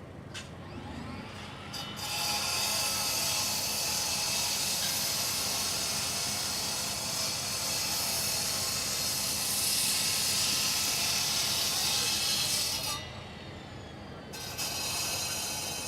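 Construction equipment at level-crossing track works giving a loud, steady hiss. It switches on abruptly about two seconds in, cuts off near the end, then comes on again briefly.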